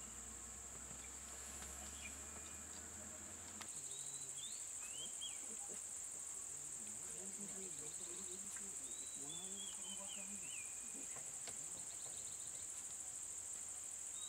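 Steady high-pitched drone of insects in the surrounding forest. A low engine hum sits under it for the first few seconds. After a cut, a few short gliding bird chirps come over the drone.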